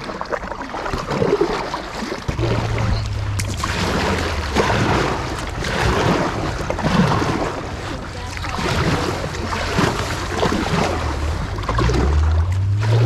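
Kayak paddles dipping and splashing water beside an inflatable tandem kayak, with water moving past the hull. A steady low wind rumble on the microphone sets in about two seconds in.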